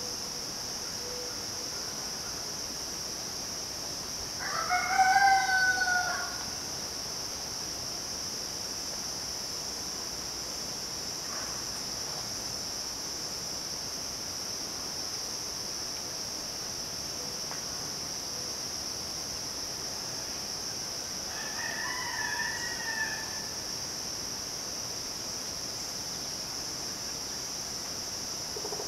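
A rooster crows loudly about four seconds in, and a second, fainter crow comes near the twenty-two second mark. A steady, high-pitched drone of midsummer insects runs underneath.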